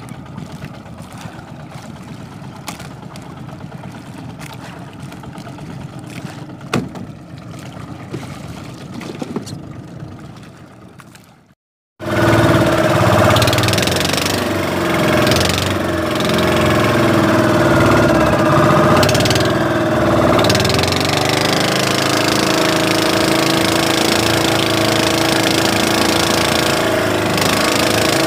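Scattered light clicks and knocks at first. Then, about twelve seconds in, an outrigger boat's engine running steadily underway takes over as the loudest sound, its pitch wavering slightly now and then.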